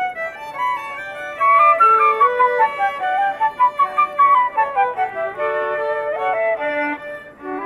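Live chamber music: flute and violin playing a classical piece together. The flute carries a quick run of stepping notes that is loudest in the first half, then eases off with a short dip near the end.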